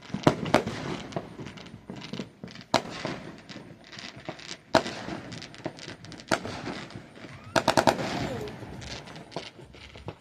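Fireworks going off: sharp bangs at irregular intervals, with a quick string of about six cracks in a row about three-quarters of the way through.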